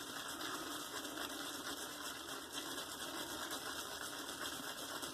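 Omega Pro 10098 boar-bristle shaving brush being swirled over a puck of D.R. Harris Naturals hard shaving soap, loading the brush heavily: a faint, steady brushing.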